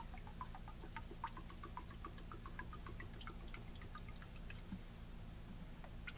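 Faint, irregular dripping, a few drops a second: brake fluid dripping from the lines while the brakes are being bled.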